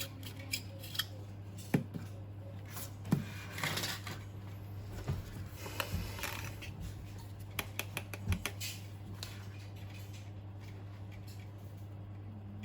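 Small clicks, taps and short rustles of objects being handled and set down on a work surface, over a steady low hum; the handling stops about two-thirds of the way through.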